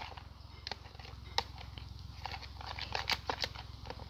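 Irregular light clicks and taps from stirring a glue and shaving-foam slime mixture in a plastic bowl, a few sharper taps about a second and a half and three seconds in.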